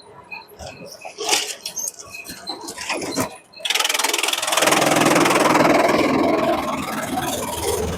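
Scattered knocks and clatter, then about three and a half seconds in a bamboo shredder machine starts up suddenly and runs with a loud, dense, steady grinding noise.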